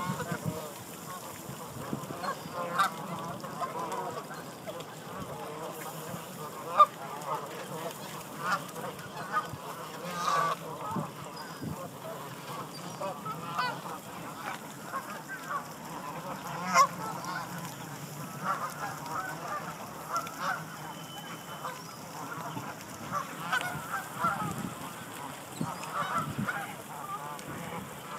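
A large flock of Canada geese honking: many overlapping calls without pause, with louder single honks standing out now and then.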